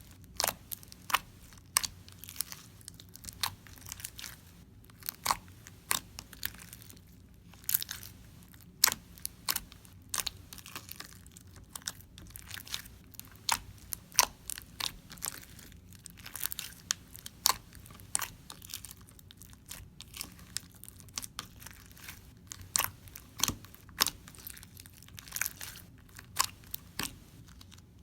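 Crunchy fishbowl slime being squeezed and pressed by hand, the beads in it giving a string of sharp, irregular crunches and pops, a few every second.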